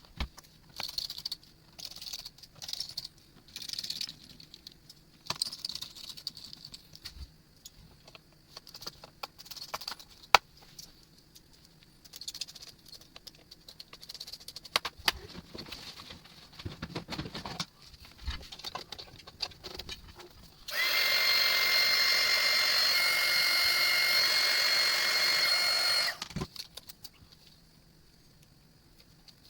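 Scattered light clicks, taps and small knocks of laptop parts being handled. Then, about two-thirds of the way through, a small electric motor starts and runs with a steady whine for about five seconds, the loudest sound here.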